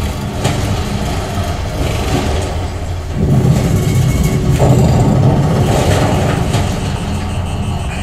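Movie soundtrack of a spacecraft passing through a wormhole, a deep rumble that gets louder about three seconds in. It is played through home-theatre speakers with a sealed SVS SB-2000 Pro subwoofer and heard in the room.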